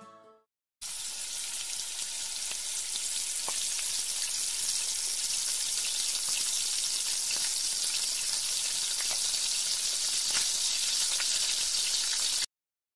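Sliced red onions sizzling in hot oil in a wok, with faint ticks and scrapes as a wooden spatula stirs them. The sizzle starts suddenly about a second in and cuts off sharply just before the end.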